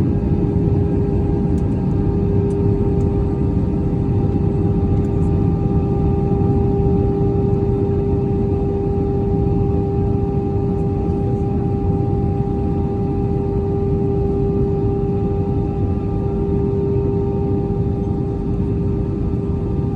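Steady cabin noise inside an Airbus A319 in flight: engine and airflow rush with a constant hum tone over it, level and unchanging throughout.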